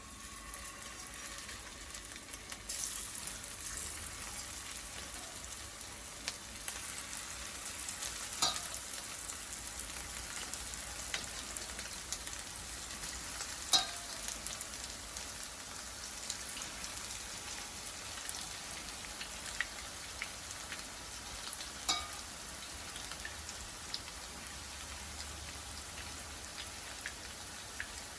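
Marinated chicken 65 pieces deep-frying in hot oil: a steady sizzle, with a few sharp clicks, the loudest about halfway through.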